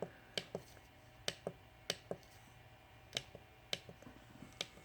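Keys being pressed on a HUST CNC lathe control panel: about ten sharp clicks at uneven intervals, some in quick pairs, over a faint steady hum.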